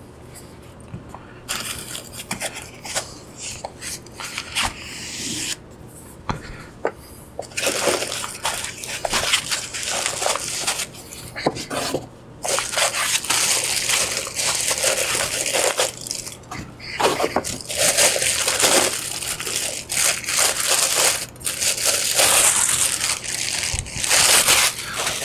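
Handling of cardboard and foam packaging with light scrapes and knocks, then a clear plastic bag crinkling and rustling continuously from about eight seconds in, as the boxed device is pulled out and unwrapped.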